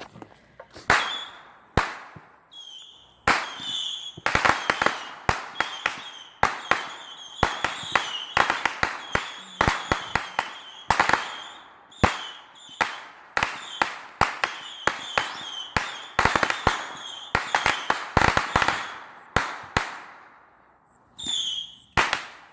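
Consumer fireworks going off: a rapid, irregular run of sharp bangs and pops over most of the stretch, with a high steady note between them, easing off near the end.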